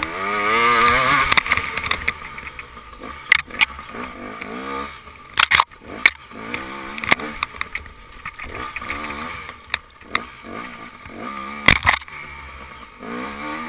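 KTM dirt bike engine revving hard and easing off again and again as it is ridden over a rough dirt track, its pitch repeatedly climbing and dropping. Sharp knocks from bumps cut through, loudest about five and a half seconds in and near twelve seconds. Heard from the rider's helmet.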